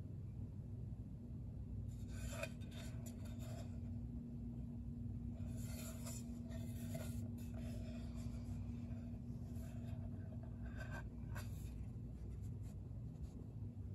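Hands handling and turning a bamboo cutting board against a fabric blanket: soft rubbing and scraping in three spells, over a steady low hum.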